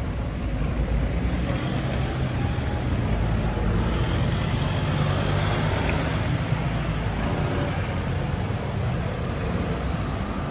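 An engine running steadily with a low rumble, amid outdoor traffic noise.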